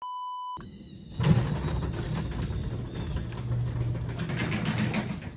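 A short steady test-tone beep, then a steady mechanical running noise with a low hum, fitting a sectional garage door being raised by its opener.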